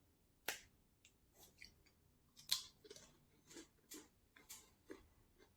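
Faint crunching of a milk-flavoured cracker being bitten and chewed. There are two sharper crunches, about half a second and two and a half seconds in, then softer chewing crunches roughly twice a second.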